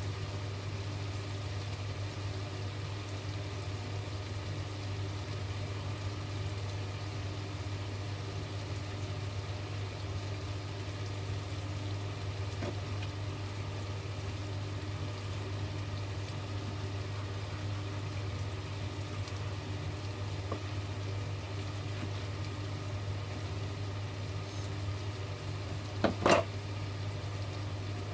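A steady low hum with a faint hiss runs throughout. Over it come a few soft taps of a kitchen knife on a cutting board as cooked steak is sliced. Near the end there is one louder clatter as the knife is set down on the counter.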